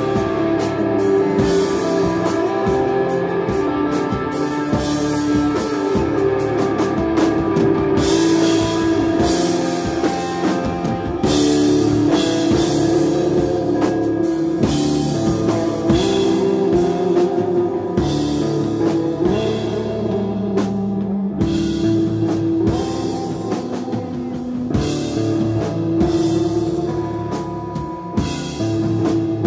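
A desert rock band playing live and instrumental: electric guitar holding long sustained notes over bass guitar and a drum kit with steady cymbal hits.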